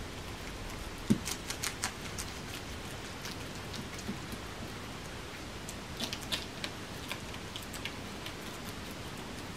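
Guinea pigs biting and chewing crisp lettuce cores, giving sharp crunchy snaps in quick clusters, one about a second in and another about six seconds in, over a steady hiss.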